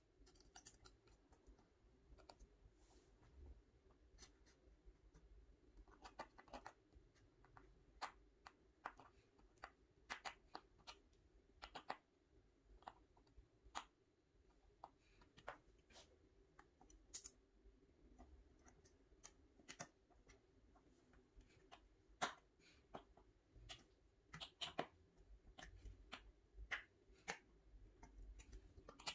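Scattered light clicks and scratches of hands fitting a metal drawer runner onto a white particleboard furniture panel, over a faint steady room hum.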